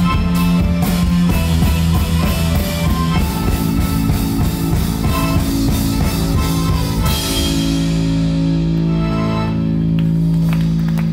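Live band of accordion, drum kit and electric bass playing a fast instrumental passage. About seven seconds in, a bright crash gives way to a long held chord, the close of the song.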